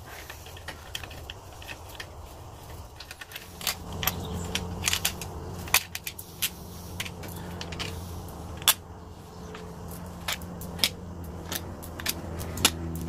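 Steel clutch cover bolts on a BMW K1200 GT motorcycle engine being backed out by hand and clinking against each other in a gloved palm: a run of small metallic clicks and jingles. A low steady hum comes in about three and a half seconds in.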